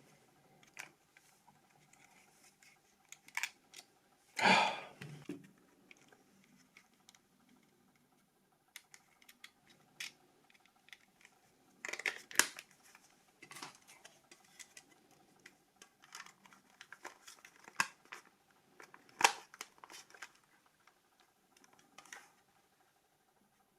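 Small clicks, taps and rustles of hands handling plastic phone parts, irregularly spaced, with a longer rustle about four seconds in.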